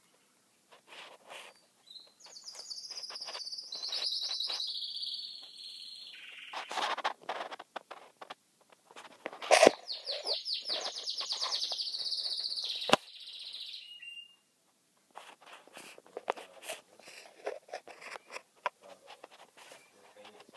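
Caged canary singing two long, fast, high trilling phrases, the first a couple of seconds in and the second about halfway through. Scattered sharp clicks and knocks fall around the song, two loud ones during the second phrase.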